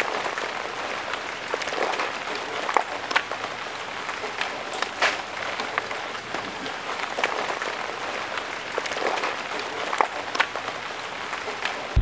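Steady rain, an even hiss with scattered sharp taps of single drops landing close by.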